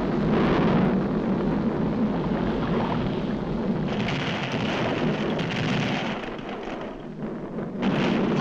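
Animated-cartoon sound effects of a volcanic eruption: a dense, steady rumbling noise with hiss. It eases off somewhat and swells again near the end.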